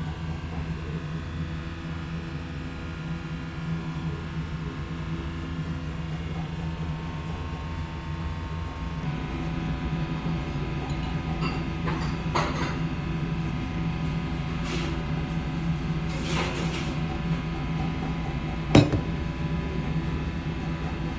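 Beer poured from a glass bottle into a small glass, with short splashing and fizzing and a sharp glass clink near the end, over a steady low electrical hum.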